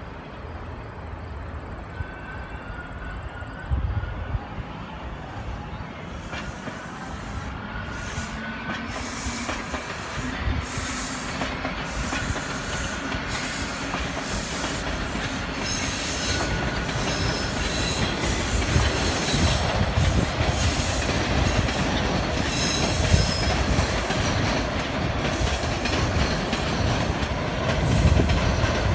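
TTC subway train running past on its tracks, wheels clicking over the rail joints with brief high wheel squeals, the rumble growing steadily louder.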